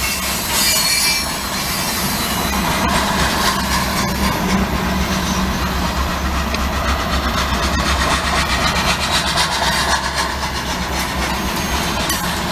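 A freight train's autorack and tank cars rolling past with a steady rumble and a rapid, continuous clicking of wheels over the rail joints, heard through a vehicle's windshield.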